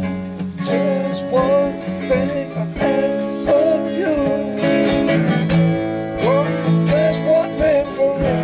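Several acoustic guitars played together: strummed and picked chords under a melody that slides and bends between notes.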